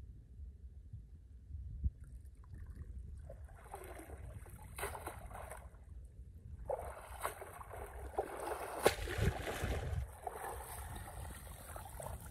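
Shallow muddy water splashing and sloshing as a cast net is hauled out by hand, in two bouts: one starting about three and a half seconds in, a longer one from about seven to ten seconds in.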